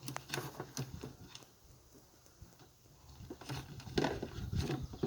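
A new sprayer's hose is being unwound by hand: irregular small plastic clicks, knocks and rubbing. The clicks are sparse at first and come thicker in the last second and a half.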